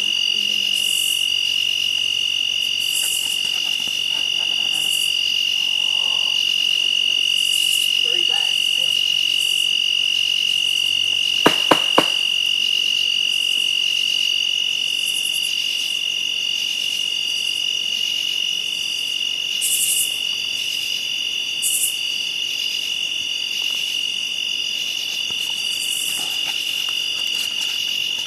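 A chorus of night insects: crickets trilling steadily at one high pitch, with shorter, higher insect calls coming and going above it every second or two. Two or three sharp clicks about halfway through.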